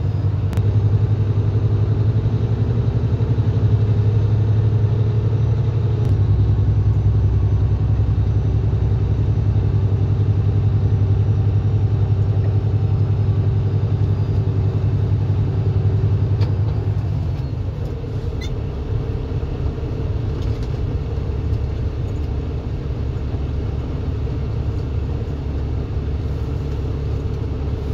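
Kenworth W900 semi truck's diesel engine droning steadily, heard from inside the cab while driving. The drone changes note about six seconds in and drops to a quieter, lower level about seventeen seconds in.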